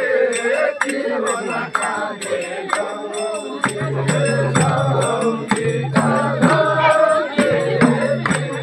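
Group of voices singing a Chhantyal traditional chant-like folk song, with a drum struck in a steady beat a few times a second. A low held tone joins the singing about halfway through.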